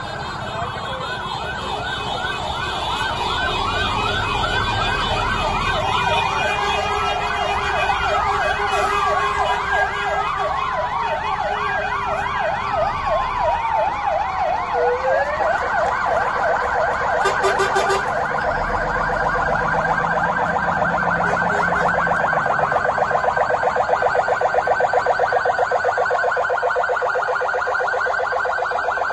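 Sirens of several fire engines sounding together. Overlapping wails rise and fall, and from about halfway through they settle into a fast, even yelp. There is a short blast about two-thirds of the way through.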